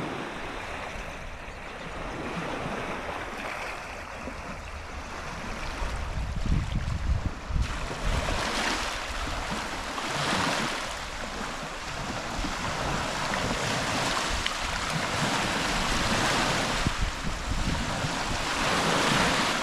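Waves washing in, swelling and easing every few seconds, with wind rumbling on the microphone.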